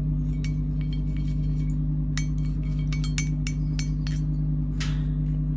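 A brush being rinsed in a water jar, clinking lightly against the jar's sides in a string of irregular, faintly ringing clinks, over a steady low hum.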